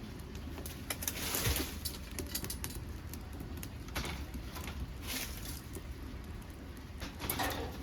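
Wood fire crackling and popping inside a homemade secondary-combustion wood-gas stove burning dead podocarpus wood: many sharp pops and clicks. Brief rushing swells come about a second in, around five seconds, and near the end.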